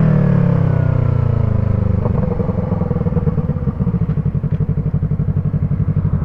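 Yamaha MT-03's parallel-twin engine through an Arashi aftermarket exhaust with a dB killer fitted, its revs falling as it slows off the throttle. About two seconds in it settles into a low, even pulsing burble at low revs.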